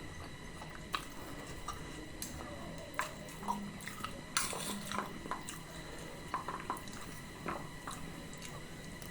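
Close-up eating sounds of potato and chickpea curry: a spoon clicking against a bowl, with wet mouth and chewing noises. The clicks come irregularly, and there is a brief louder, noisier moment about four and a half seconds in.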